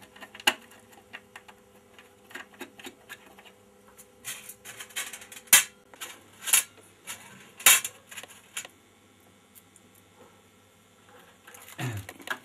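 Scattered clicks and clinks of small screws and a screwdriver being handled while a vintage 16 mm sound projector's amplifier chassis is screwed into its case, with a few sharper knocks between about five and eight seconds in.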